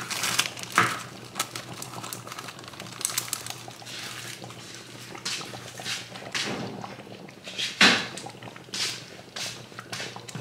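Irregular knocks and clatters of kitchen handling, with a loud thump about eight seconds in, over a pot of tomato-based soup bubbling on the stove and a steady low hum.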